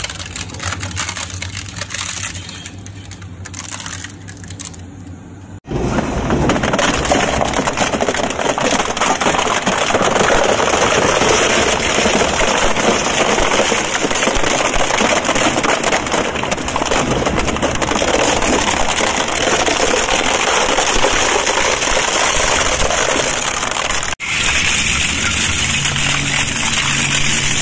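Twin-shaft industrial shredder chewing up plastic toys: continuous cracking and crunching of hard plastic over the machine's low hum. It is lighter for the first few seconds, then dense and loud, with two brief sudden drop-outs.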